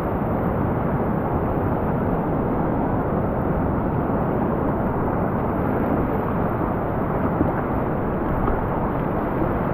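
Rushing whitewater of a river rapid at high flow: a steady, even noise of churning water.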